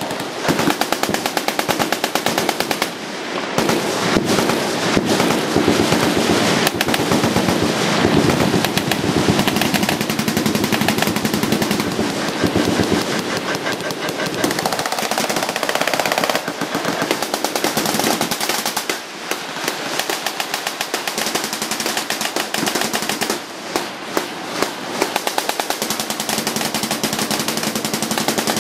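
Many machine guns firing together from a firing line: a continuous dense rattle of overlapping automatic fire, thinning briefly a few times as some guns stop.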